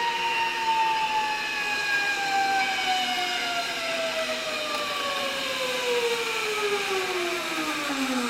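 Zip line trolley's pulley wheels whining along the steel cable as a rider comes in: one long whine that falls steadily in pitch as the trolley slows.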